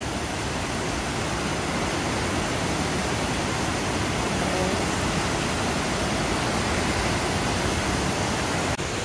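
Victoria Falls pouring into its gorge: a steady rushing of water, with a brief break near the end.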